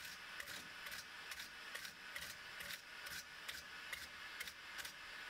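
Brass wire brush scrubbing the heated hotend frame of a Bambu Lab H2D 3D printer, brushing off burnt, overheated filament residue in short strokes, about two a second.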